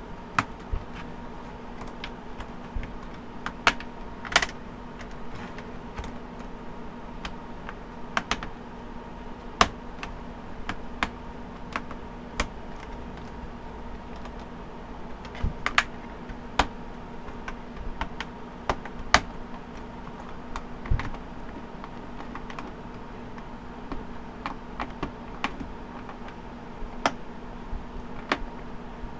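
Plastic snap-in cover strip of a Toshiba Satellite C655 laptop being pressed back into place by hand along the top of the keyboard: scattered, irregular plastic clicks, with a few sharper snaps as the clips seat. A faint steady hum sits underneath.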